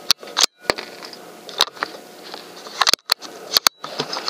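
A series of sharp clicks and knocks at irregular intervals, several in close pairs, over a faint rustling hiss.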